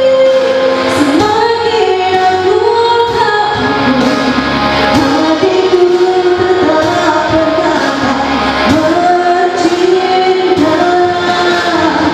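A woman singing a slow melody into a microphone over backing music with a steady beat, her long held notes gliding between pitches.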